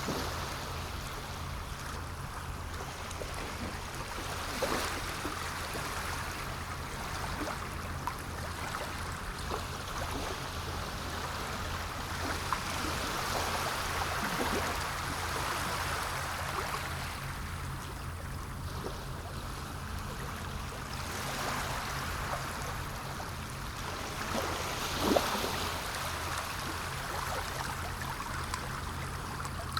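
Sea water washing and splashing against the shore, the wash swelling and easing every several seconds, with a sharper splash about 25 seconds in. A steady low hum runs underneath.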